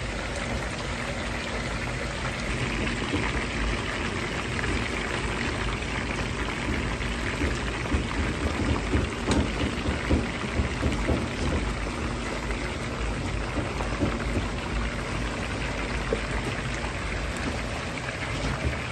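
Batter-coated chicken thigh pieces deep-frying in a wok of hot oil: a dense, steady sizzle and bubbling, with a stretch of louder crackling about halfway through.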